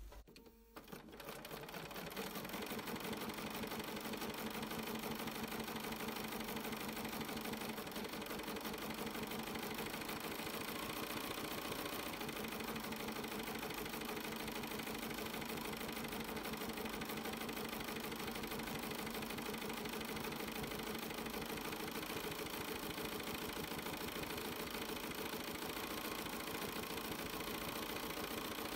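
Bernina 790 sewing machine stitching steadily at medium speed while free-motion quilting small pebble circles. It starts up about a second in and runs evenly from then on.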